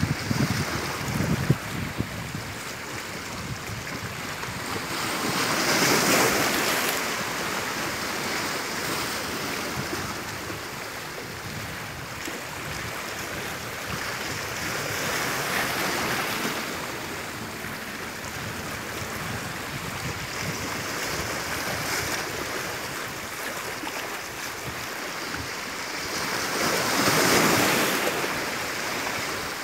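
Sea waves washing onto the shore, a continuous surf hiss that swells as waves break, loudest about six seconds in and again near the end, with a lighter swell in the middle. Some wind buffets the microphone.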